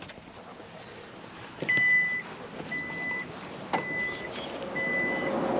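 A vehicle's reversing alarm beeping four times, about once a second, each beep a short steady high tone. A vehicle's engine hum grows near the end.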